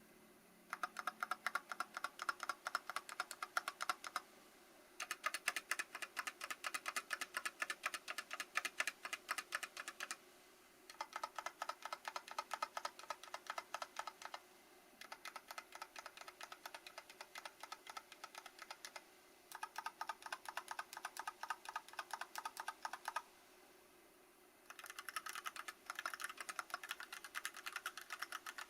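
Archon FX mechanical keyboard with Kailh Box Black linear switches on an aluminium plate, stock and unmodified, being typed on fast. The key presses come in runs of several seconds with short pauses between them.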